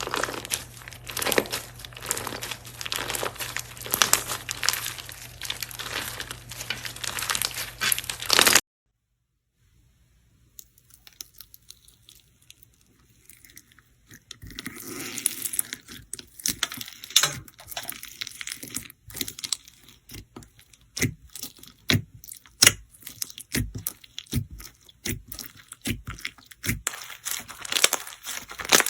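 Slime being squeezed and stretched by hand, making dense wet crackling and popping. It cuts off suddenly after about eight seconds, then comes back after a short gap as sparser, separate pops and clicks that grow busier near the end.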